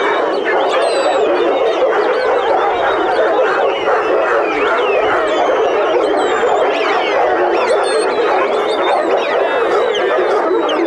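A large pack of farm working dogs howling and barking together: a loud, continuous chorus of many overlapping rising and falling howls.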